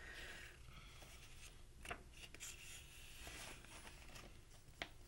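Near silence: faint room hiss, with a few soft clicks and paper rustles from a hardcover picture book being handled, the clearest about two seconds in and again near the end.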